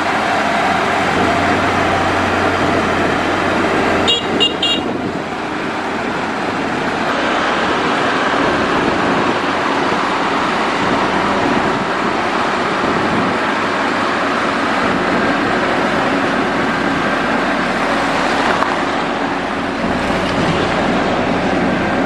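Diesel engine of a Mitsubishi motor grader running steadily under load as it grades dirt. About four seconds in, a short burst of high-pitched beeping sounds.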